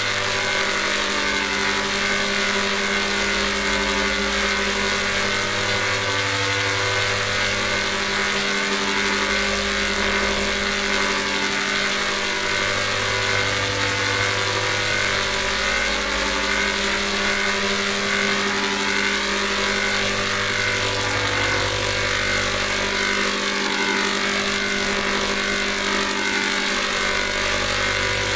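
Sustained synthetic drone holding a G major chord over a steady hiss, with a deep bass tone that shifts every few seconds.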